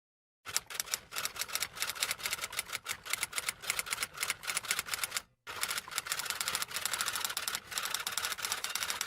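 Rapid typing: a fast, uneven run of key clicks, broken by a short pause about five seconds in and then resuming.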